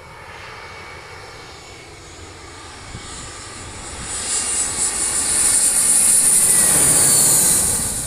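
Jet engines of a twin-engine narrow-body airliner on landing approach, passing low overhead. The noise and a high fan whine build over the first half, are loudest for a couple of seconds near the end, then fade. The whine drops in pitch as the plane goes past.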